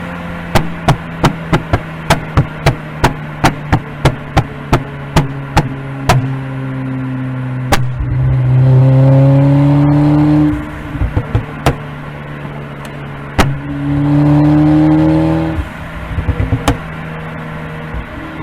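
Exhaust of a K04-turbocharged 2011 Audi A4 B8 popping and crackling: sharp, fairly even pops about three a second for the first six seconds, then two short rev-ups with the engine note rising in pitch, each followed by more scattered pops. These are tuned pops and bangs on throttle lift-off.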